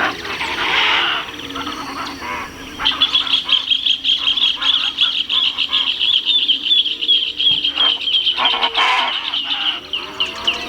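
Chaco chachalacas calling loudly. Noisy calls come first, then from about three seconds in a fast, even run of repeated notes lasts several seconds.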